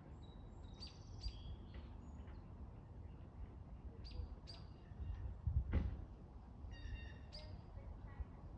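Small songbirds chirping in short, high calls, often in quick pairs, over a low steady rumble. A louder brief rustling thump comes about five and a half seconds in.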